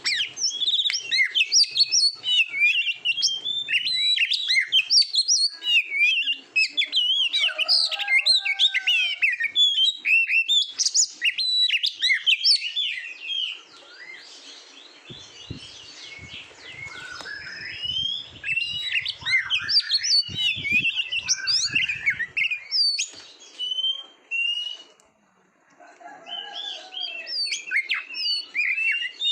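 Oriental magpie-robin singing a fast, varied stream of whistles, trills and chirps. The song breaks off twice: briefly about halfway through, and for a moment near the end.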